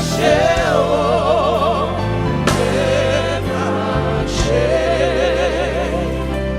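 Gospel worship song: voices singing long notes with wide vibrato over sustained low accompaniment.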